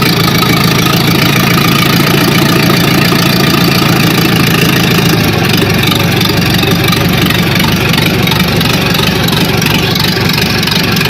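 Perkins diesel engine of a Fiatallis 345 running steadily after an engine repair.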